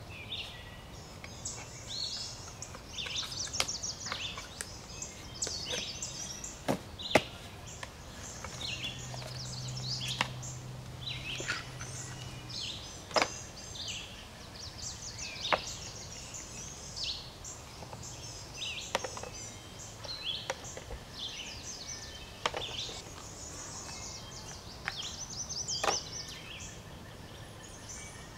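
Songbirds chirping and singing all through, with about eight sharp knocks spaced a few seconds apart.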